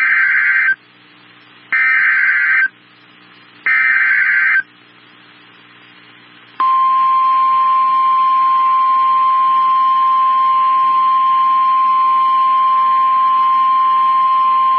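Emergency alert broadcast heralding a severe thunderstorm warning: three short screechy bursts of the SAME digital data header, then a couple of seconds later the steady single-pitch 1050 Hz warning alarm tone, which holds on at a constant level.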